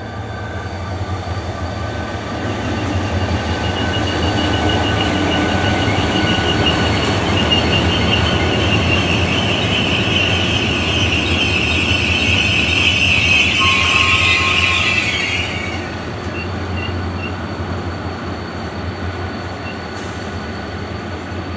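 Korail S-train tourist train rolling into a station, its wheels rumbling on the rails. A high wheel squeal builds from about six seconds in, grows louder, then cuts off suddenly partway through, leaving the lower rumble of the passing train.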